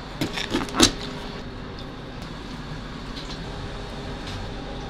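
A kitchen knife cutting through fish and knocking against the cutting board, a few short strokes in the first second, over a steady kitchen background hum.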